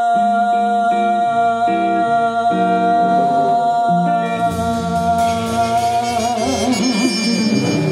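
A small jazz band's closing bars: one long held note sustained over a run of changing guitar and bass notes, wavering near the end, with cymbals swelling from about halfway through.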